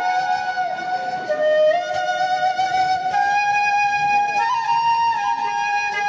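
Instrumental music: a slow flute melody of long held notes, gliding briefly from one pitch to the next.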